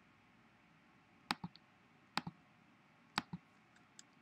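Computer mouse clicking: three quick press-and-release clicks about a second apart, with a fainter click near the end, over faint room tone.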